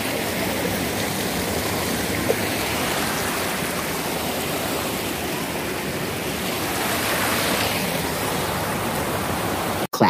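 Waterfall and mountain stream, water rushing in a steady, even roar that cuts off abruptly at the very end.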